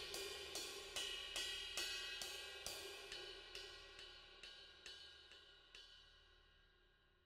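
New Sabian HHX ride cymbal played with a wooden drumstick in a steady ride pattern, about two strokes a second, ringing on between strokes. The sound fades out gradually to near silence by the end.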